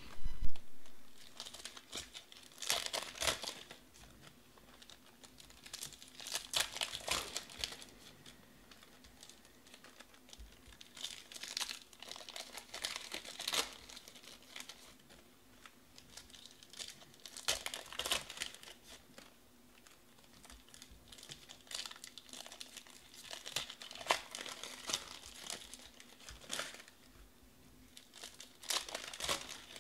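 Foil wrappers of Panini Select baseball card packs crinkling and tearing as they are ripped open by hand, in bursts every few seconds, with the cards handled in between.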